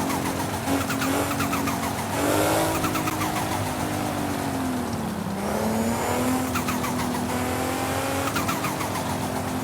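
Turbocharged engine running with its big turbo fluttering: a rapid chattering flutter comes several times over the engine note. The engine note drops about five seconds in and rises again.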